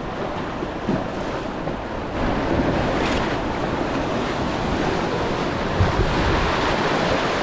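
Whitewater rapids of a flooded river rushing in a steady, dense wash of water noise, with wind noise on the microphone. It grows louder about two seconds in.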